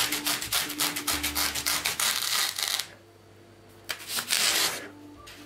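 Serrated knife sawing through polyethylene foam packaging: quick back-and-forth scraping strokes, several a second, that stop about three seconds in, followed by a short second burst of sawing a second later.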